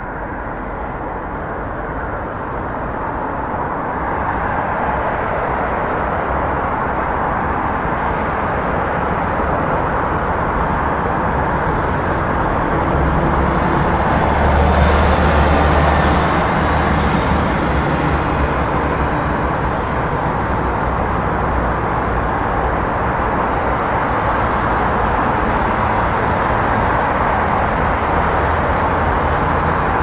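Steady road traffic noise: a continuous wash of passing vehicles' tyre and engine noise. It grows louder over the first few seconds and swells to a peak with a deeper rumble about halfway through.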